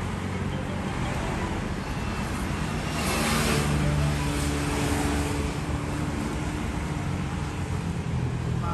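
Street traffic running past, a steady low rumble with a vehicle passing and swelling loudest about three to four seconds in.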